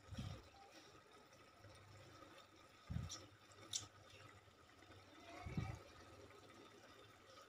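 Quiet handling sounds as a lemon half is squeezed over a steel ladle and its juice drips onto it: three soft low bumps and two light ticks, over a faint steady hum.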